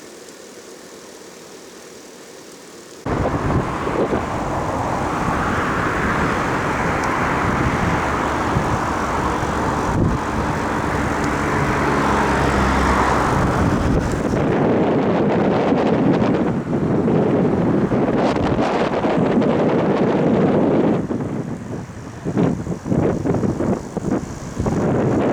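Wind buffeting the microphone over road noise, with a low engine-like drone, coming in abruptly about three seconds in and turning gusty and choppy near the end.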